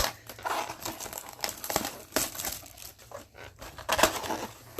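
Packaging crinkling and tearing as a sealed baseball card box is opened by hand, in irregular crackles with louder bursts at the start, about two seconds in, and near the end.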